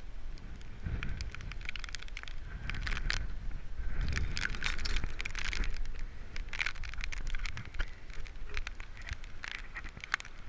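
Strong wind buffeting an action camera's microphone in gusts, with many small crackling clicks of rain striking the camera.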